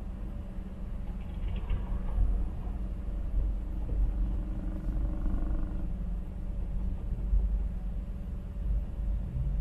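Low steady rumble of city traffic, heard from inside a car standing at an intersection, with other vehicles passing faintly in front during the first half.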